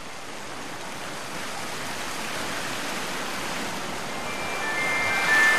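A steady rushing noise, like surf or running water, slowly growing louder. About four seconds in, a few high chime-like music notes begin over it.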